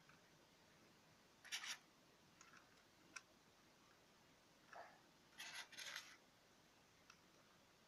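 Faint scratching and rubbing from hands handling a vinyl record clock and fitting the clock hands onto the mechanism's centre shaft, in two short spells, about a second and a half in and just past the middle, with a couple of small clicks.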